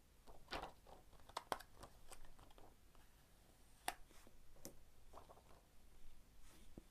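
Faint handling noises: a few soft, scattered clicks and taps with light rustling as a steelbook case and its paper info sheet are moved about by hand.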